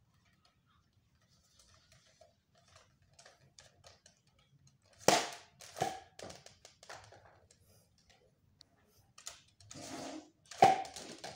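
Nerf Fortnite RL foam-rocket blaster being primed with light plastic clicks, then a loud sharp pop about five seconds in as it fires, with a second knock just after. After some scattered clatter, another loud pop comes near the end.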